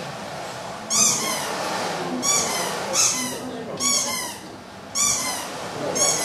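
Corrugated whirly tube swung in circles overhead, giving airy whistling tones of several pitches at once that swell and bend up and down about once a second with each turn.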